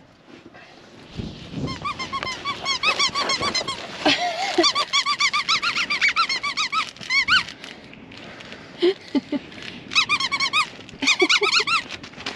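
Dog chewing a squeaky chew toy, its squeaker going off in quick runs of several short squeaks a second. The squeaking pauses briefly about seven and a half seconds in, then starts again.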